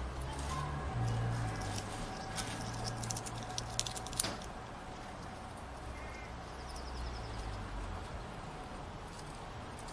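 Fox squirrel chewing and gnawing its food, giving a cluster of sharp clicks about two to four seconds in, over a low steady rumble, with a faint bird chirp about six seconds in.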